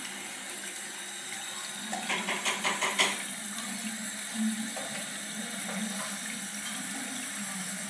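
Bathroom sink tap running steadily, filling a latex balloon stretched over the spout with water. A few quick clicks of handling about two to three seconds in.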